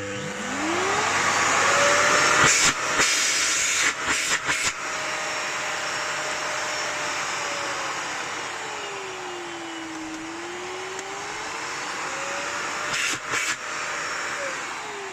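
A Miele S5260 Cat & Dog 2200 W cylinder vacuum cleaner's motor starts and runs up to speed with a steady whine and a rush of air. Its pitch sinks for a few seconds past the middle and climbs back. Near the end the motor winds down as it is switched off. A few knocks from handling come early on and near the end.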